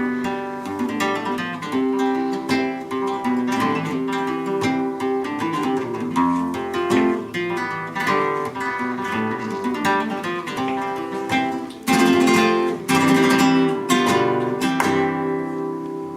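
Flamenco acoustic guitar playing a lively passage meant to express joy: picked notes, then loud strummed chords for the last few seconds before the sound rings out and fades.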